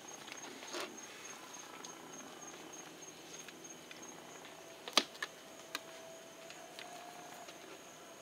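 Quiet knife work filleting a flounder on a plastic cutting board: faint scraping and tapping as the blade works along the bones, with a sharp click about five seconds in and two smaller ones just after.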